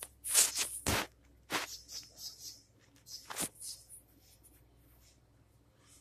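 A few sharp knocks, the loudest about a second in and another at about three and a half seconds, with short high chirps between them.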